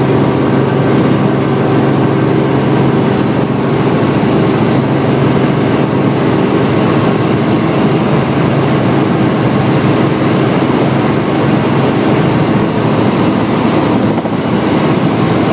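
Light helicopter's engine and rotors running in steady cruise flight, heard from inside the cockpit as a loud, even drone with a constant low hum.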